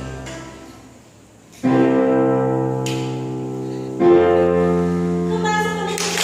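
A children's harmonica group playing the closing bars of a song: a sound fading away, then two long held chords to end the piece.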